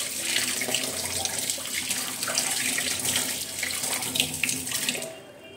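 Tap water running into a stainless steel sink and splashing over brass pooja vessels as they are rinsed by hand. The flow dies down near the end.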